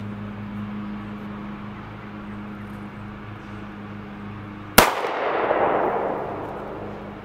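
One 9mm pistol shot from an Altor single-shot pistol about five seconds in: a sharp crack followed by an echo that fades over about two seconds.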